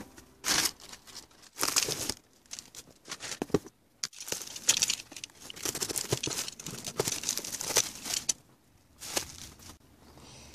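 Bubble wrap and cardboard packing being torn open and handled by hand: irregular bursts of crinkling, rustling and tearing, some sharp and loud, with short quiet gaps between them.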